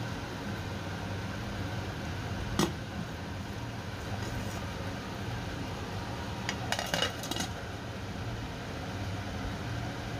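Glass lid set down onto a stainless-steel cooking pot with a few quick clinks about seven seconds in, after a single sharp click a little over two seconds in. Under it runs a steady hiss and low hum from the boiling pot on the stove.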